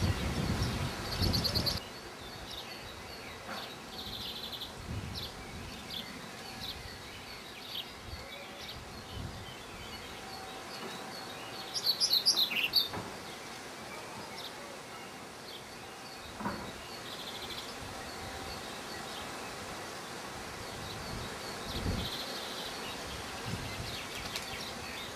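Small songbirds calling: short high chirps repeated at intervals, with a louder burst of rapid high notes about twelve seconds in. A few low rumbling thumps come near the start.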